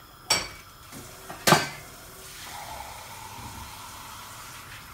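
Two sharp clanks of steel kitchenware, about a second apart, with the second louder, followed by a steady hiss.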